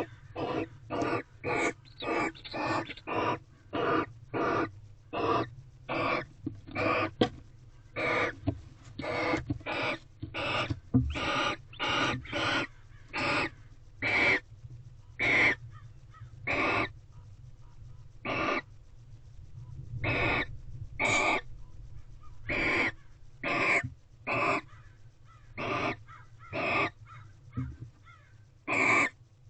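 A bird giving a long series of short, harsh calls, about two a second at first, then slowing to roughly one a second over the second half.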